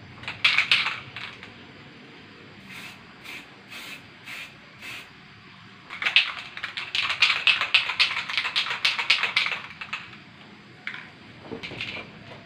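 An aerosol spray-paint can used in short bursts: a brief burst just after the start, several quick puffs, then a longer run of rapid pulses in the middle and two more short bursts near the end.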